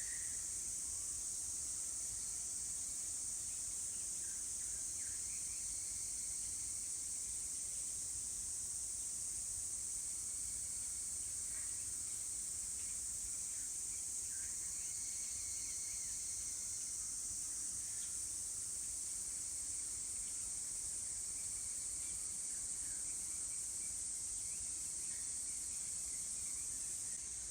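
Insects calling in a steady, continuous high-pitched trill, with faint short chirps now and then.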